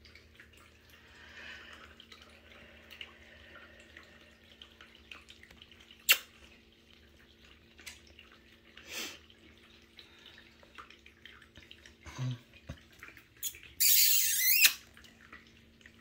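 Soft scuffles and clicks of young kittens crawling on a knit blanket over a steady low hum, with a loud rustling hiss lasting about a second near the end.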